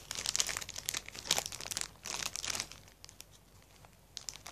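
Crisp keropok crackers crunching and crackling as they are eaten close to the microphone, in dense bursts for the first two and a half seconds, then quieter, with a few more crackles near the end.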